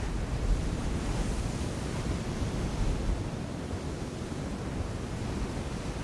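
Sea surf washing against rocky cliffs: a continuous rushing of waves, a little heavier in the first half. Wind buffets the microphone with a low rumble.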